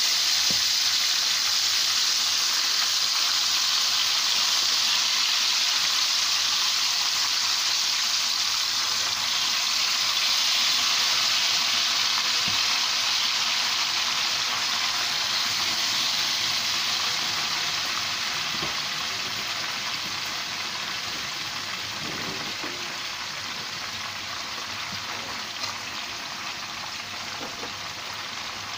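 Tandoori chicken pieces in a yogurt marinade sizzling as they shallow-fry in hot oil in a frying pan: a loud, steady hiss that gradually quietens over the second half.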